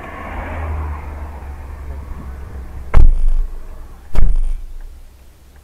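Low rumble of a car driving, heard from inside the cabin through a dashcam microphone. Two loud, sharp thumps come about three seconds in, a little over a second apart.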